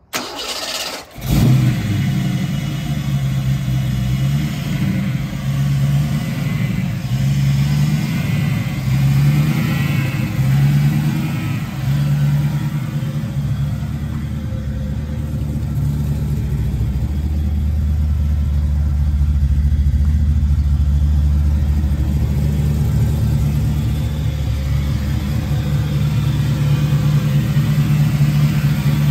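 A 1992 Fox-body Mustang's engine is cranked and starts about a second in. It runs with wavering revs at first, then settles into a steady idle after about 12 seconds.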